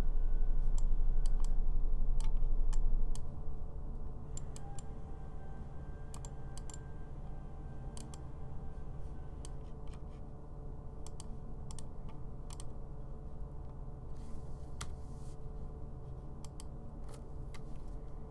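Computer mouse clicking: about twenty short, sharp clicks scattered irregularly, several coming in quick pairs, made while dragging and rotating a 3D view and pressing toolbar buttons. Under them runs a steady low hum that is much louder for the first three seconds and then drops.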